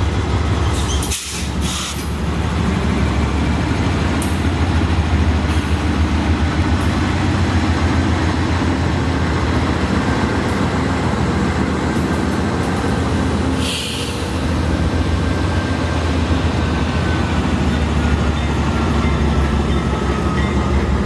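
Freight train rolling past with mid-train Norfolk Southern diesel locomotives going by: a steady, loud low engine rumble over the noise of wheels on the rails, with a faint high drawn-out squeal near the end.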